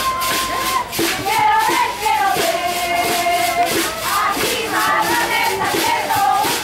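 Several young voices yelling long, drawn-out cheers in unison, high-pitched and held for a second or more at a time, sliding from one pitch to another.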